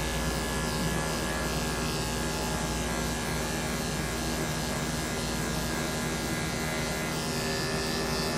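Corded electric pet grooming clippers running steadily as they shave through a dog's long coat.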